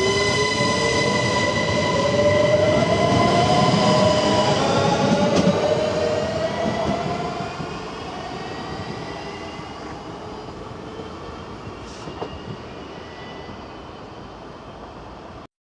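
SNCB Siemens Desiro electric multiple unit pulling away. Its traction motors whine, rising in pitch as it gathers speed, over a set of steady high electric tones. The sound fades as the train draws away and cuts off suddenly near the end.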